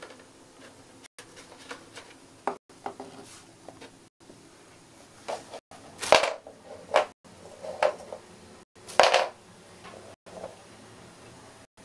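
A hamster dragging a bone-shaped dog biscuit across a wooden floor: a few short scrapes and knocks of the biscuit, the loudest about six and nine seconds in.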